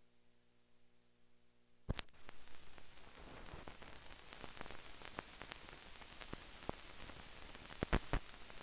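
Hiss and crackle of an old 16mm film's soundtrack, with scattered clicks and pops. It is nearly silent apart from a faint hum until a sharp click about two seconds in, after which the hiss and pops run on, with two louder pops near the end.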